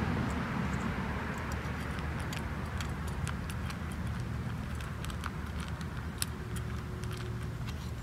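A cat eating from a small metal bowl: irregular crisp clicks and crunches, several a second, over a steady low background rumble.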